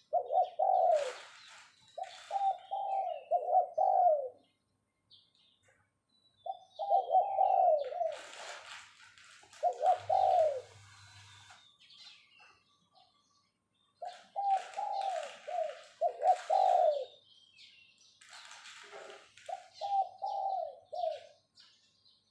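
A decoy spotted dove cooing its 'phao' calling song: six bouts of several low, falling coo notes, separated by pauses of one to three seconds. Higher, noisy chirps fill some of the gaps between bouts.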